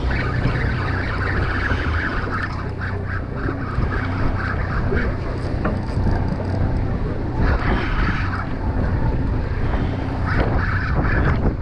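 Wind buffeting the microphone over the steady low hum of a boat engine, with waves sloshing against the hull.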